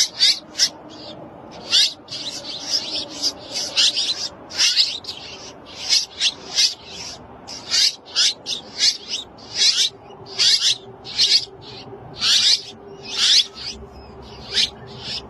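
Baby birds' shrill, raspy begging calls, given in short bursts one to two times a second while being fed.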